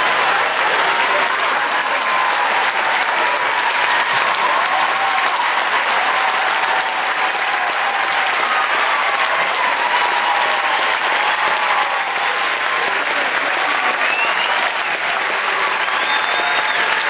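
Large theatre audience applauding steadily, greeting the reveal at the end of a stage magic trick.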